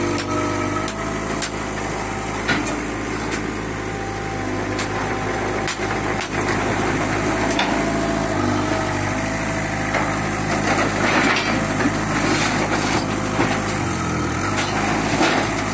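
Old Airman AX30 mini excavator's diesel engine running steadily under hydraulic load, its pitch sagging briefly near the end, as if close to stalling though still pulling strongly. Scattered clanks of scrap metal being handled.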